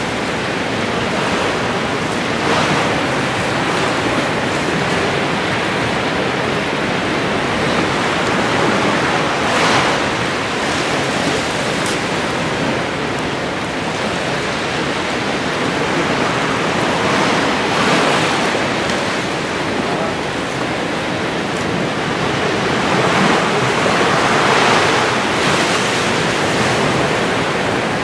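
Steady rushing water noise heard through a submerged camera, swelling louder a few times.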